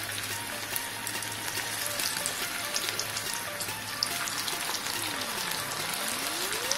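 Whole potatoes deep-frying in hot oil in a kadai: a steady sizzle with fine crackles. Near the end a tone glides down and then back up.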